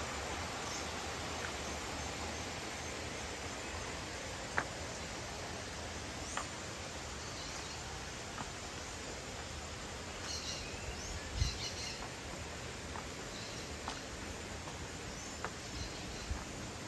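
Outdoor garden ambience: a steady even hiss with birds chirping, a cluster of chirps about two-thirds of the way through, and a few scattered sharp clicks.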